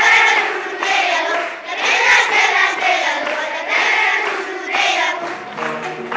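A group of children chanting together in unison, in loud phrases about a second long. About five seconds in, instrumental music starts.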